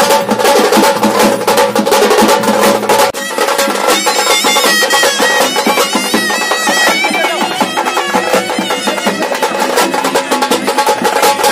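Music with fast, dense drumming. About three seconds in the drums ease off and a high, wavering melody comes in. The drumming picks up again near the end.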